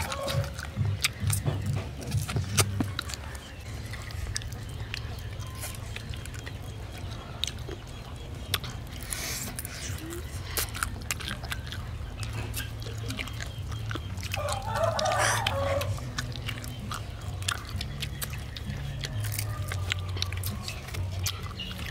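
Children chewing and smacking their lips as they eat grilled skewered food, with many sharp wet clicks over a low steady hum. A hen clucks briefly about fifteen seconds in.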